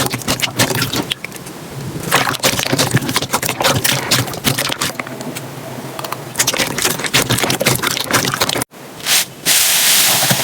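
Slime being squeezed and pressed by hand, giving dense, crackling clicks and pops. Near the end it cuts out for an instant, then a louder, even crunching hiss starts.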